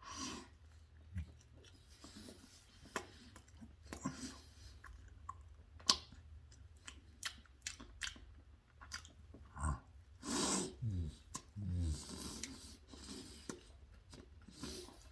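Close-up chewing and mouth sounds of a man eating a chicken sandwich: soft wet smacks and clicks scattered irregularly, with a few louder patches near the end.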